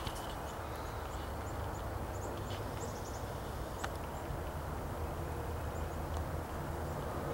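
Woodland ambience: small birds giving short, high chirps scattered through, over a steady low rumble, with a couple of sharp clicks in the middle.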